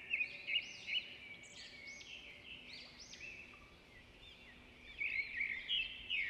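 Birds chirping and twittering, a steady background of many short overlapping calls, busiest at the start and again near the end.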